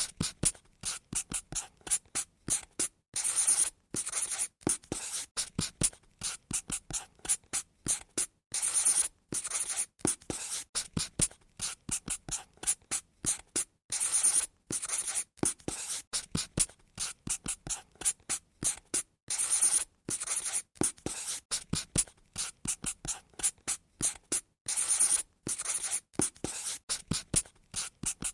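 Pen strokes scratching on paper while drawing a pattern: many short, quick strokes with brief pauses, and now and then a longer, louder stroke.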